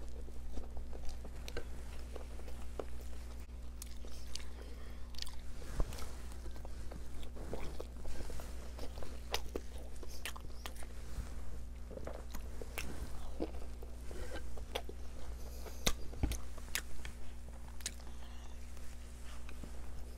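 Close-up mouth sounds of a person biting and chewing soft, wet stuffed sheep intestines (Iraqi menabir) and chickpeas, with scattered smacks and clicks of the lips.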